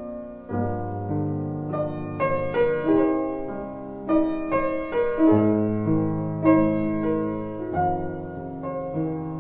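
Background piano music: chords and a melody, each note struck and then dying away.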